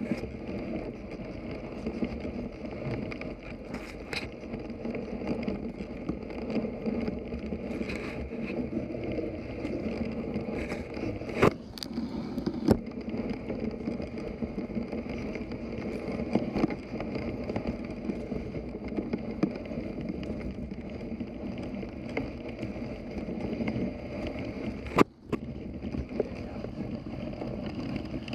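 Dog sled being pulled through deep fresh snow while breaking trail: a steady rushing of runners and paws in the snow, with a few sharp knocks, two around the middle and the loudest near the end.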